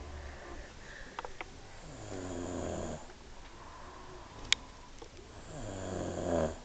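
Two men snoring in turn: one long snore about two seconds in and another near the end, with a brief sharp click between them.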